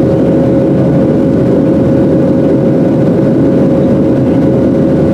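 Boeing 737-700 cabin noise: the steady drone of the CFM56-7B engines and airflow as heard inside the cabin, with a steady hum tone running through it.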